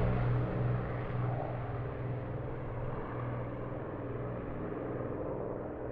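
The four Rolls-Royce Merlin engines of an Avro Lancaster droning as it flies away after a low pass, the sound steadily fading and growing duller.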